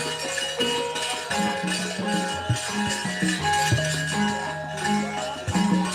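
Javanese gamelan ensemble playing: bronze metallophones ringing a run of sustained pitched notes over repeated sharp percussion strokes.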